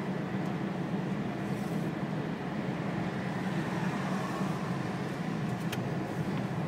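Steady road and engine noise of a moving car heard inside its cabin, a low even rumble. A couple of faint clicks near the end.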